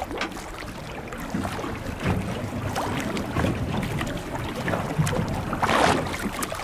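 Water splashing and slopping at the surface beside a boat as a hooked bronze whaler shark moves alongside, with wind on the microphone. A louder splash comes near the end as the shark churns the surface.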